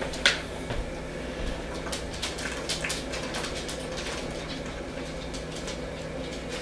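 A man gulping down a protein shake from a plastic shaker bottle, a run of soft swallows, after a sharp click near the start as the bottle is handled. A steady low hum runs underneath.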